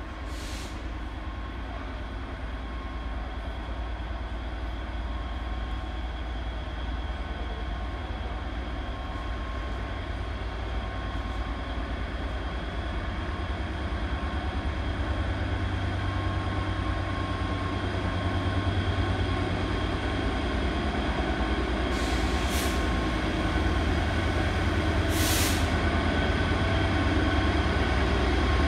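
Class 66 diesel-electric locomotive's two-stroke V12 engine working under power as it accelerates a freight train toward the listener, its deep rumble growing steadily louder. Two brief hisses come near the end.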